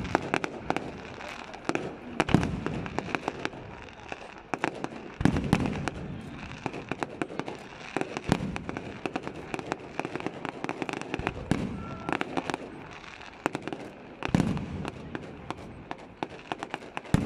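Fireworks going off: a constant rapid crackling of small reports, with several deeper booms a few seconds apart.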